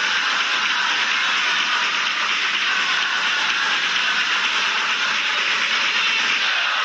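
Steady stadium crowd noise during a football match, an even din from the stands with no single event standing out.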